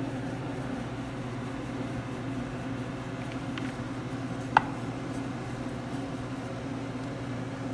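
A steady low mechanical hum, with a few faint taps and one sharp click about halfway through, from a rolling pin working a ball of dough out into a small flat round.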